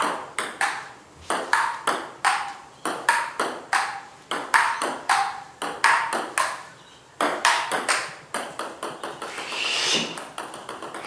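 A table tennis rally: the plastic ball clicking back and forth off the bats and a budget Kmart folding table. There are about two to three hits a second, with short gaps between points.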